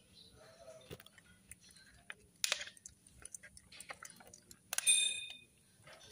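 Scattered small clicks and knocks of metal parts being handled at an engine block, with a sharper metallic clink about five seconds in that rings briefly.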